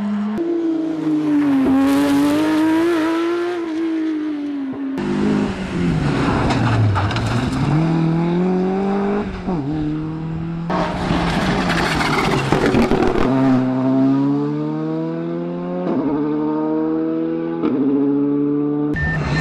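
Rally cars running flat out on a tarmac stage, one after another in quick edited shots: engine notes climb steeply, then drop at each gear change or lift for a corner. The last shots include a VW Polo GTI R5 rally car.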